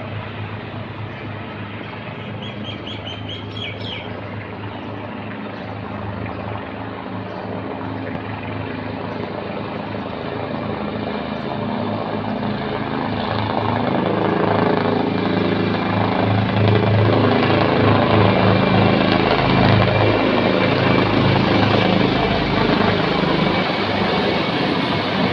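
Formation of military helicopters flying over, their rotors beating in a steady low pulse that builds as they approach and stays loud for the last several seconds. A few bird chirps a couple of seconds in.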